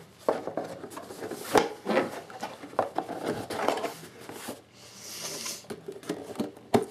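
Stiff cardboard presentation box being handled: the lid pressed back on and the box lifted and set about, giving light knocks and taps, a brief sliding rustle about five seconds in, and a sharp knock near the end.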